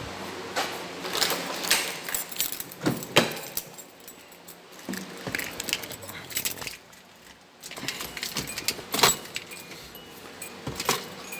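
Keys jangling with scattered sharp clicks and knocks, the loudest about three seconds and nine seconds in.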